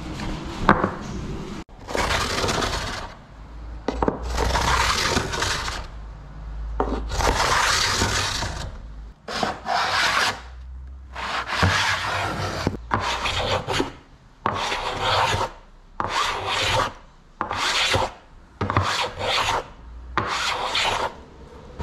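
Bridge City block plane shaving a strip of jarrah down to thickness, in a series of strokes. The first strokes are long, about two seconds each; later ones are shorter, about one a second.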